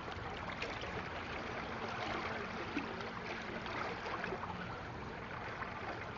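Harbor water rushing and lapping against the dock in a strong tsunami-surge current, a steady wash of noise. A faint steady hum sits underneath it.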